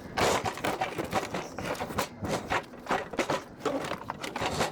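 Large double-door refrigerator being shuffled and dragged across sand, giving an irregular series of gritty scuffs and knocks mixed with footsteps.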